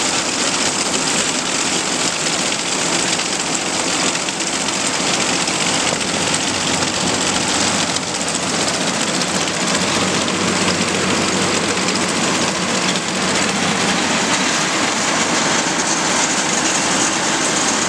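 Combine running steadily at speed with its Drago 8-row 30-inch corn head engaged: a constant mix of engine noise and the clatter of the header's gathering chains and driveline.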